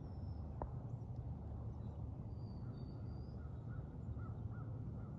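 Outdoor ambience: a steady low rumble with faint distant bird calls, a short run of them a little after two seconds in, and one faint click near the start.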